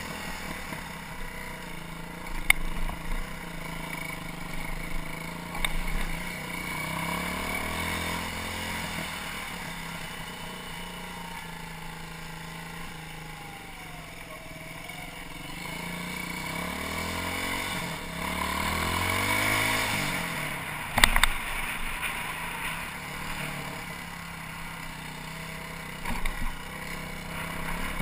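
BM Motard 200's single-cylinder four-stroke engine heard on the move, its revs rising and falling as the bike accelerates and slows, with two sharp knocks, the louder one near the end. The engine has developed dips in pull, wandering revs and a tick heard now and then while riding.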